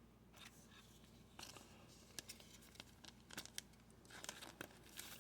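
Faint scattered clicks and rustles of baseball trading cards being handled and slid over one another.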